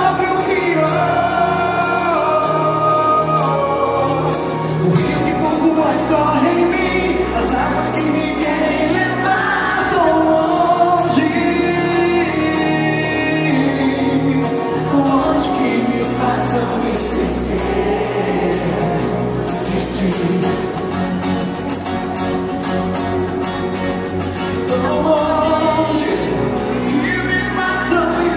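Live band performing a Brazilian pop (MPB) song, with acoustic guitars, bass notes, keyboard and a steady light drum beat under a woman's singing voice, recorded from the audience in a concert hall.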